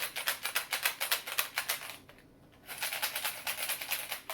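Metal buttons rattling inside a small plastic egg shaker as it is shaken hard, a quick run of clicks in two bouts with a brief pause between them.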